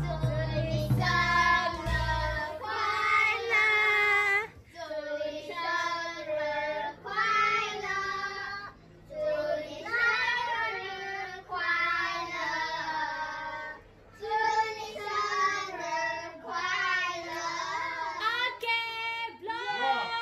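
Children singing a birthday song, in phrases a few seconds long with short breaks between them.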